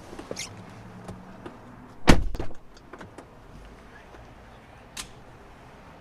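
A car door thudding about two seconds in, with a sharp click near the end.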